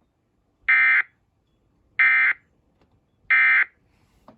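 Emergency Alert System end-of-message code: three short, identical bursts of digital data tones, about 1.3 seconds apart, marking the end of the alert.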